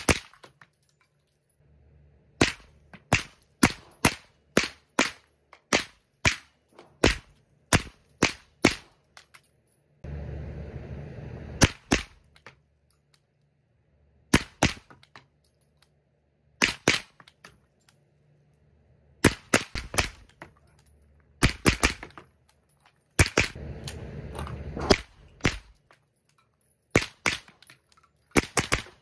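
Suppressed 9mm gunfire through a JK Armament Versax 155 suppressor: an opening string of about ten shots roughly two-thirds of a second apart, then single shots and quick groups of two to five shots with pauses of a second or two between.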